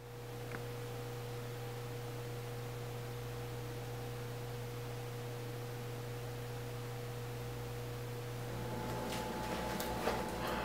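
Steady low electrical hum with a faint higher steady tone. About eight and a half seconds in it gives way to a different steady background, with a few light clicks.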